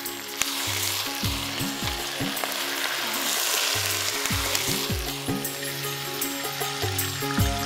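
Whole stingray frying in hot oil in a wide pan, a steady sizzle, with the cook's spatula stirring and turning the fish now and then.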